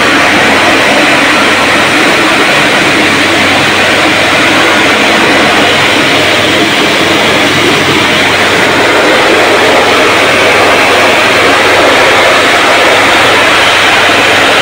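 Pressure washer's high-pressure water jet spraying into a car's air-conditioning condenser, a loud steady hiss with a steady low hum underneath, flushing dirt out of a clogged condenser.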